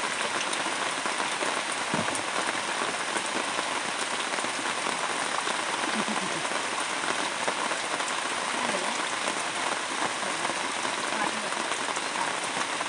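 Rain falling steadily: an even, unbroken wash of drops.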